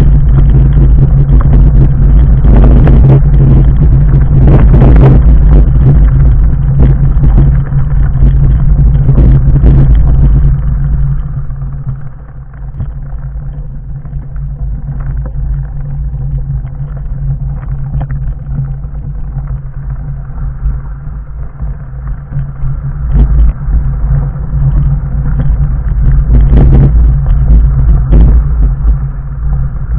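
A fat bike on 4-inch off-road tyres riding over a loose stony track: a heavy rumble with frequent knocks and rattles as the tyres and frame hit stones, heard from a camera mounted on the bike. It eases off for about ten seconds in the middle on smoother ground, then grows loud again on the rocky descent near the end.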